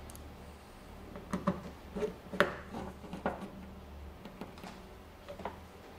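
Irregular clicks and knocks of a screwdriver and a new side mirror's mount being handled and fitted against a pickup's door, several sharp ones close together in the middle, the loudest about two and a half seconds in, then sparser toward the end.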